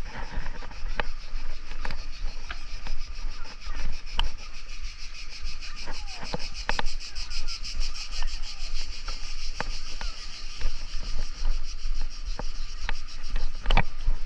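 Cicadas buzzing in a steady, high, fast-pulsing chorus, over a low rumble, with scattered sharp clicks.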